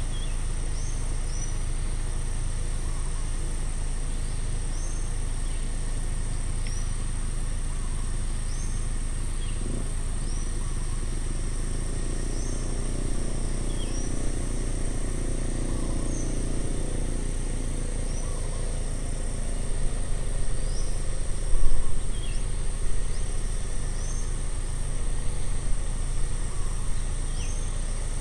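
Outdoor roadside ambience: insects trilling steadily and a bird repeating a short rising call about every two seconds, over a constant low rumble. A low hum swells and fades midway, like a distant vehicle passing, and a few low bumps follow in the last third.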